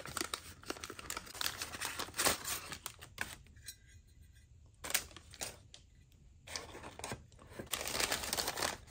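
Brown kraft packing paper being crinkled and torn open by hand, in bursts of crackling with two short pauses.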